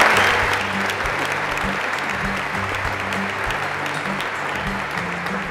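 Audience applauding, with background music underneath.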